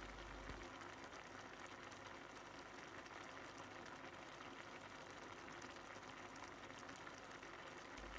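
Pot of instant ramen soup simmering on the stove after the soup base has gone in: a faint, steady bubbling hiss with fine crackles.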